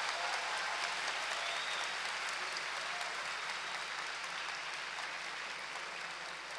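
A large seated audience applauding steadily, the clapping easing off slightly near the end.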